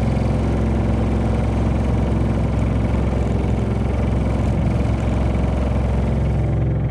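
Honda Odyssey Hybrid (RC4) on the move with a steady, loud low drone and vibration: the abnormal noise of a shimmy, the front end shaking after the car crossed a gap in the road.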